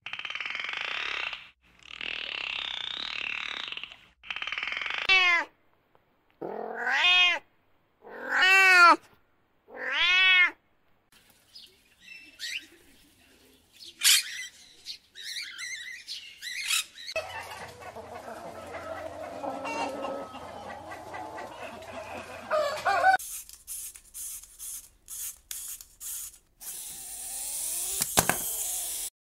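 A string of different animal sounds from separate clips. After some noisy bursts come four loud arching, meow-like calls, then short sharp calls, a stretch of rustling noise and a run of quick clicks.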